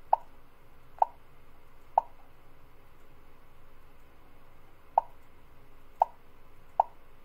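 Six short mid-pitched beeps from a FARO arm measuring system, each one marking a point captured as the green button is pressed with the probe ball resting on the part: three about a second apart, a pause of about three seconds, then three more.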